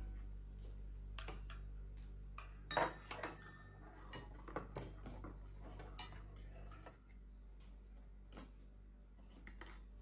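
Tableware clinking as a dinner table is set: plates, glassware and cutlery set down in scattered clinks and light knocks, with a quick cluster of them about three seconds in.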